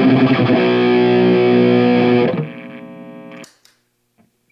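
Kramer electric guitar played through a Sondery Distortion pedal with the gain cranked all the way up, into a Marshall amp: heavily distorted chords ringing out. They fade after about two seconds into a sustained note that is cut off abruptly, followed by a small click.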